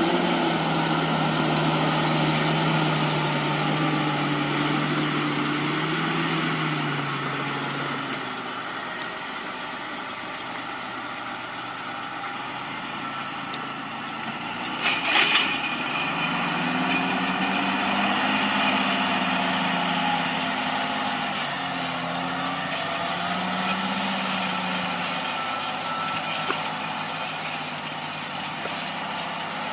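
A heavy vehicle's engine running, its pitch rising and falling as it works, with a short sharp hiss about fifteen seconds in.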